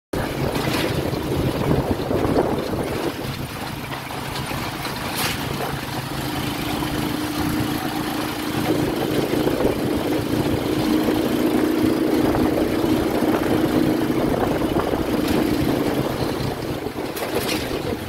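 The motorcycle engine of a Philippine tricycle running steadily while underway, with a higher steady hum joining about six seconds in and a few short knocks along the way.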